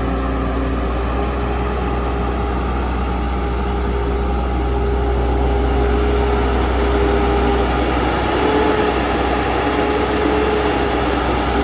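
A heavy engine running steadily: a low rumble under a steady whine that shifts slightly in pitch about eight seconds in.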